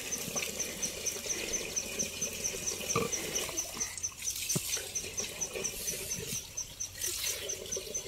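An insect, such as a cricket, chirping steadily in a high-pitched even rhythm of roughly four pulses a second. Two soft knocks are heard, about three and four and a half seconds in.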